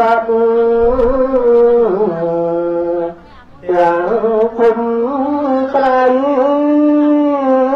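Buddhist prayer chanting led by a voice over a microphone, in long held melodic notes that glide slowly between pitches, with a brief pause for breath about three seconds in.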